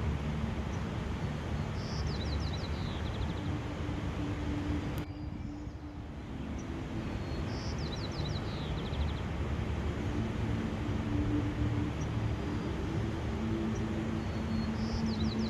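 A songbird repeats a short song three times: one high note followed by a quick trill of falling notes. Under it runs a steady rushing noise and a low hum of several held tones.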